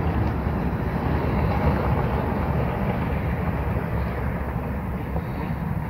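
Wind buffeting the microphone: a steady low rumble that fades slightly toward the end.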